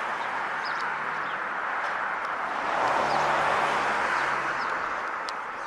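Steady outdoor traffic noise, swelling about three seconds in as a vehicle passes, with a faint low engine hum. Faint bird chirps sound above it.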